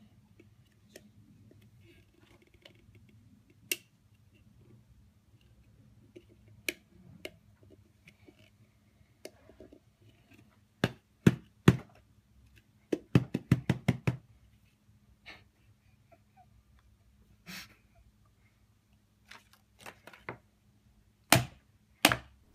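Hard plastic knocking and clicking as a clear plastic cup-shaped package is shaken and banged to free a device stuck inside: scattered taps, a quick flurry of knocks about thirteen seconds in, and two sharp knocks near the end.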